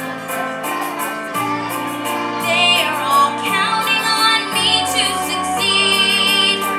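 A young girl singing a musical-theatre ballad over instrumental accompaniment of held chords, holding long notes with vibrato from about two and a half seconds in.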